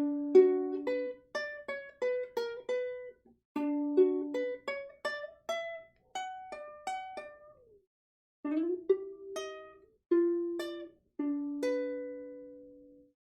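Makala MK-SD soprano ukulele played as a melody of single plucked notes, in three short phrases, with a note sliding in pitch around the middle. The last note rings out and fades.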